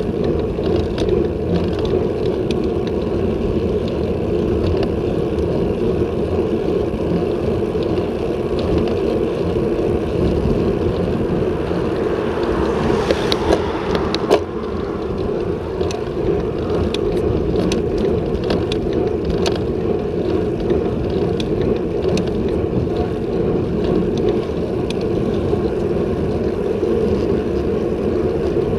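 Steady wind rush on a bicycle-mounted action camera's microphone, with road-bike tyres rolling on asphalt and scattered small clicks. About halfway through, a car overtakes: its noise swells for a couple of seconds and then drops off.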